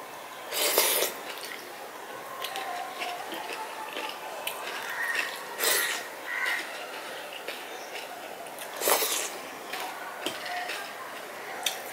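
Wet squishing of rice being mixed by hand into runny masoor dal on a steel plate, with chewing. Three brief, louder wet noises stand out: about half a second in, near six seconds and near nine seconds.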